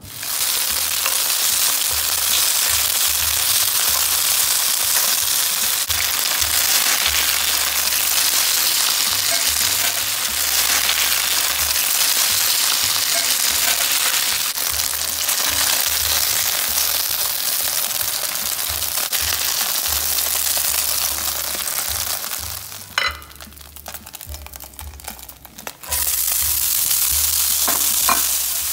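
Chicken pieces coated in starch sizzling and crackling as they fry in oil in a skillet. About three-quarters of the way through, the sizzle falls away for a few seconds with a few knocks, then a fresh sizzle starts as chopped onion, garlic and ginger fry at high heat.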